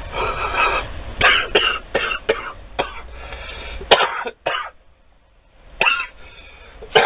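A man coughing and clearing his throat in a run of short, harsh coughs, with another cough a few seconds later: a reaction to the burn of the wasabi paste he has just eaten.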